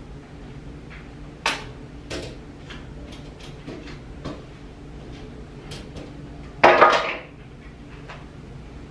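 Kitchenware being handled: a sharp knock about one and a half seconds in, scattered small clicks and clinks, then a louder clattering rattle of dishes or pans near the seven-second mark, over a steady low hum.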